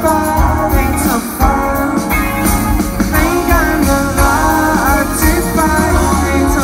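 Live pop-rock band playing a song: a male lead vocal over electric guitar, keyboard and drum kit, heard from within the audience.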